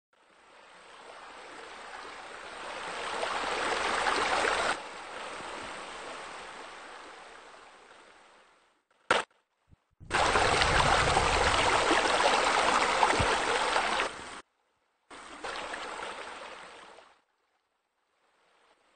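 Running, splashing water from pool water features, a rock waterfall and deck bubblers, heard in several stretches that swell and cut in and out abruptly, loudest a little past the middle.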